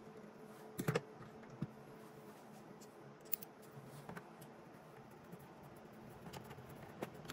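Faint, scattered light clicks and scrapes of the small parts at a Bambu Lab printer's poop chute being handled and pressed into place by fingers, about five in all, over a faint steady hum.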